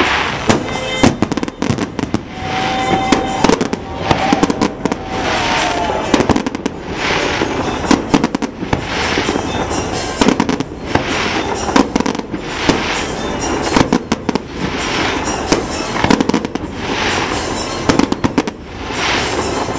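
Aerial fireworks going off: many sharp bangs and crackles in quick clusters over a continuous noisy din.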